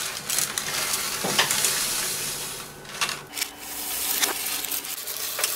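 Dry rice grains pouring from a plastic bag onto chicken and vegetables in a casserole dish: a steady rustling hiss with a few clicks.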